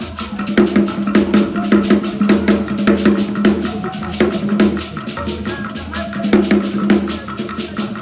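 African drum music: a fast, dense run of drum and percussion strikes over a steady low note.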